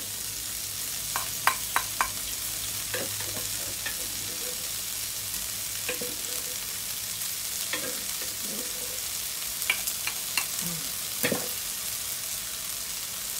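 Sliced red chillies and garlic sizzling in a little oil in a nonstick wok: a steady frying hiss with a scattering of short sharp crackles.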